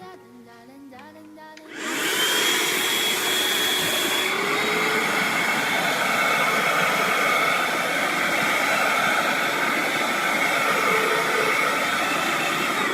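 Handheld wet-and-dry car vacuum cleaner switched on about two seconds in, its small motor running at a steady pitch with a high whine over the rush of air. Soft background music plays before it starts.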